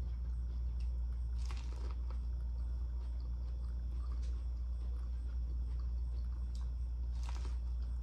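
Biting into and chewing boiled corn on the cob, with short crisp bites about a second and a half in and again near the end, over a steady low hum.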